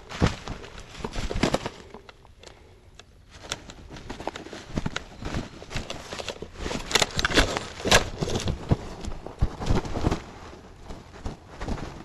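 Footsteps crunching through dry fallen leaves and brush, with twigs crackling and branches brushing past; the steps pause briefly about two seconds in, then resume.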